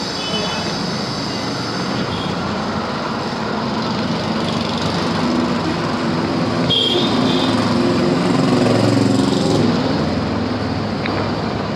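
Street traffic with engines running steadily, growing louder past the middle, and short horn toots near the start and about seven seconds in.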